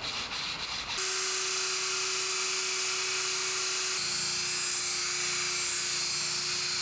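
Brief hand rubbing on the steel saw blade, then from about a second in a handheld electric drill runs with a steady whine and hiss as its abrasive wheel grinds along the blade. The whine drops slightly in pitch about four seconds in.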